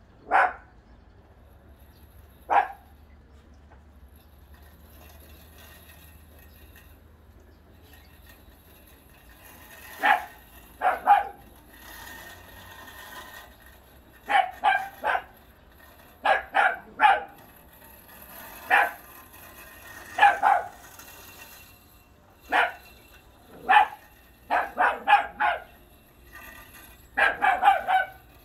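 Italian Greyhound barking repeatedly: single sharp barks and quick runs of two to four, with pauses of a few seconds between them.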